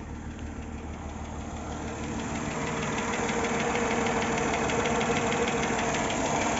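Mercedes-Benz M112 V6 engine, brought up from idle about two seconds in and held at raised revs, with a fast knock running through it. The owner says the knock starts at around 2000 rpm and can't tell whether it is a hydraulic lifter.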